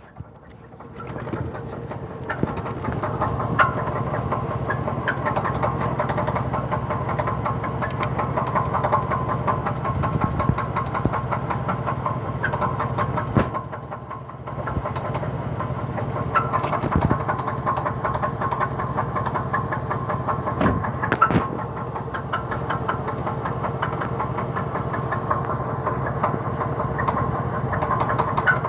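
A 2003 Cadillac DeVille's Northstar V8 idling with a knock and scattered sharp ticking and squeaking, the noise the owner heard at a morning start along with stalling and a shaking exhaust. The running dips briefly near the middle.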